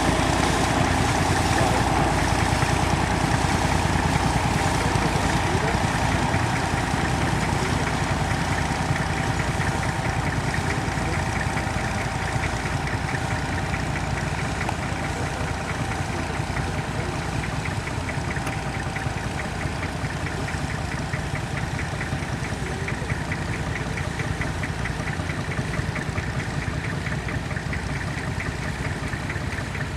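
Tractor diesel engine running steadily with an even beat, gradually growing fainter as it works away.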